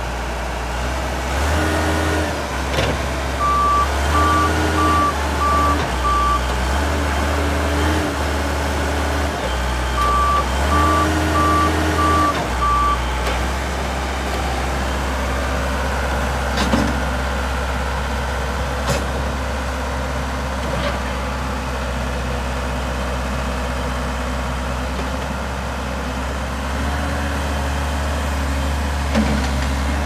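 Case 580M backhoe loader's diesel engine running and working harder for several seconds as the machine is driven and its loader worked, with its backup alarm beeping in two runs of evenly spaced beeps while it reverses.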